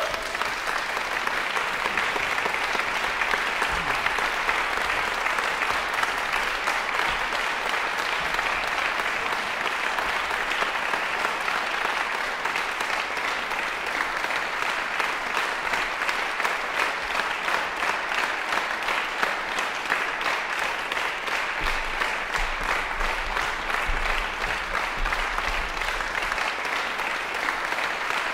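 Concert audience applauding steadily, the clapping growing into an even, rhythmic beat in the second half.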